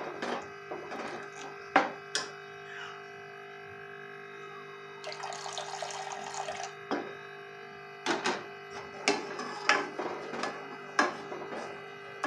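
Black ladle knocking and scraping against a steel pan while stirring hot milk, in scattered sharp clicks. About five seconds in, custard mix is poured into the milk with a brief splashing pour.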